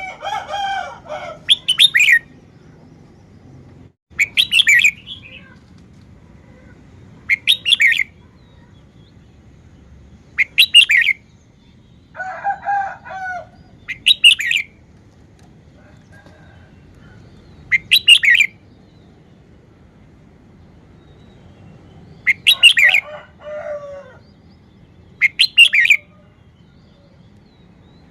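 Red-whiskered bulbul singing: short, loud, bright song phrases repeated every three to four seconds, with a few lower, warbling calls in between.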